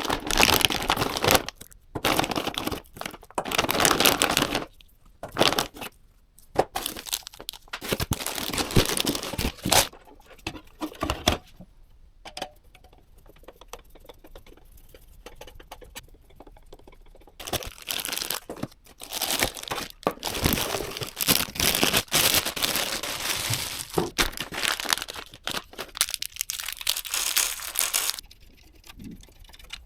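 Packaging, such as plastic bags or wrapping, being crinkled and torn open in several bouts of dense crackling, with quieter stretches of small clicks and handling noises in between.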